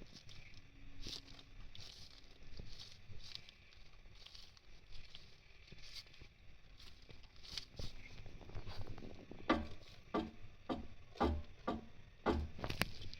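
SPL aftermarket sway-bar end links clunking and creaking: light scattered creaks and clicks at first, then, about two-thirds of the way in, a run of about seven heavier clunks about half a second apart.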